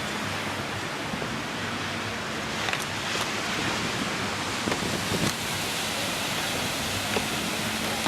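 Steady wash of ocean surf with wind on the beach, an even rushing noise with no breaks and a few faint ticks.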